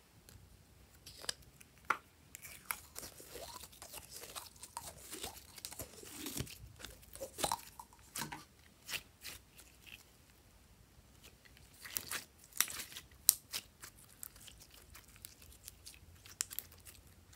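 Hands squeezing, stretching and pressing glossy slime: irregular sticky clicks, crackles and small squeaks, in two busy stretches with a quieter gap between.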